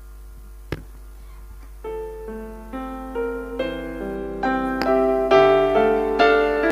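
Keyboard introduction to a song: after a quiet start with a single click just under a second in, piano-like notes come in one at a time from about two seconds in and build louder.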